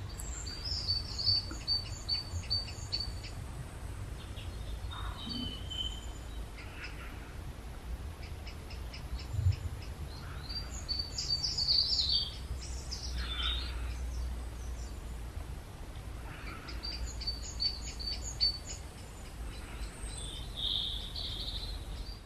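Small songbirds singing and calling outdoors: several bouts of quick, high, repeated chirps with a few falling notes in between, over a steady low rumble.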